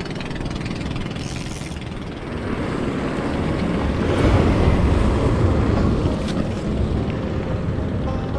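Steady rushing rumble of sea wind buffeting the microphone, with surf washing against the breakwater rocks; it swells about two seconds in and eases a little near the end.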